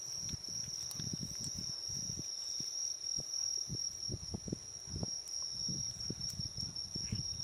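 A cat licking paste from a Churu squeeze tube close to the microphone: short, wet licks repeating irregularly, about three a second. A steady high insect trill runs behind it.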